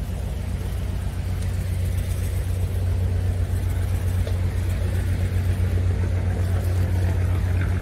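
Steady low engine rumble with a light hiss over it, cutting off abruptly at the very end.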